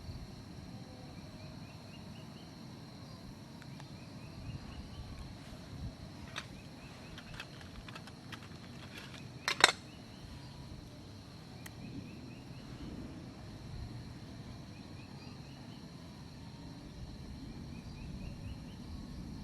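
Forest ambience: a steady high insect drone, with a short rising run of animal calls repeated every few seconds. A few light clicks and one loud, sharp knock a little before the middle stand out.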